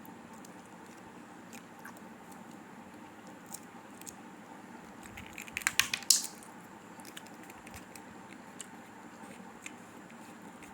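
Candy packaging being handled: scattered light clicks, then a short burst of crinkling and crackling about halfway through.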